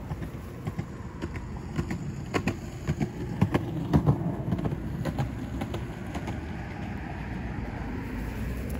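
Road traffic passing nearby, a steady low rumble, with a run of sharp knocks and taps close to the microphone between about two and five seconds in.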